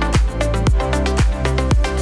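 Electronic dance-style background music with a steady kick-drum beat, about two beats a second.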